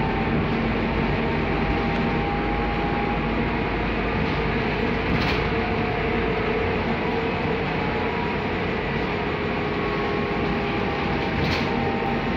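Steady cabin noise inside a moving Scania articulated bus: engine and road rumble with a constant hum. Two brief clicks or rattles come about five and eleven seconds in.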